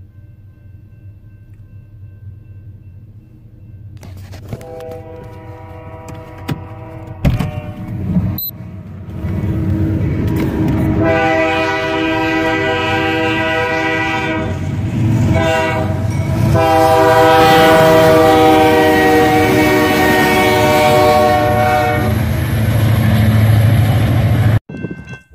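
Diesel freight locomotive air horn sounding the grade-crossing signal of two long blasts, a short one and a final long one, getting louder as the train approaches. Beneath it the locomotives' engines rumble louder as they reach the crossing near the end.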